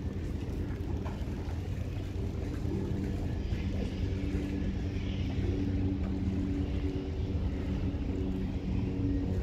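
Steady low mechanical hum with a few held tones, under a rumble of wind on the microphone.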